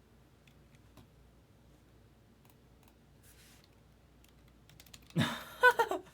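Faint scattered clicks of a computer keyboard, then about five seconds in a man's brief wordless vocal sound, the loudest part.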